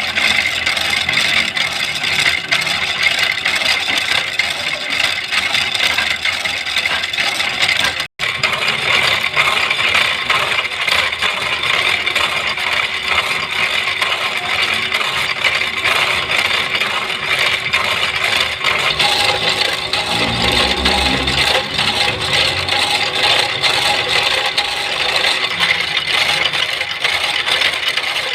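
Power hacksaw machine running, its blade scraping through metal with a steady rattling clatter. The sound drops out for an instant about eight seconds in.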